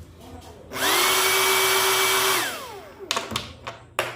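Homemade DC-motor 'jet engine', an electric motor spinning a fan, spins up about a second in with a rising whine and a loud rush of air. It runs at a steady high pitch for about a second and a half, then winds down with a falling whine. A few sharp clicks follow near the end.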